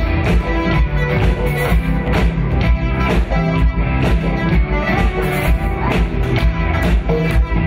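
Live band playing a pop-rock worship song: electric guitars and keys over a steady drum-kit beat, with singers on vocals.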